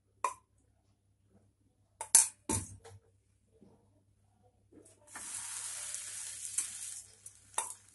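A few sharp knocks of kitchen utensils about two seconds in, then desi ghee sizzling on a hot tawa as a sandwich is laid in it. The sizzle starts about five seconds in and fades after about two seconds.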